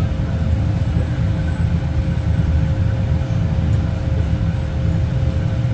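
A steady low rumble with a faint steady hum over it.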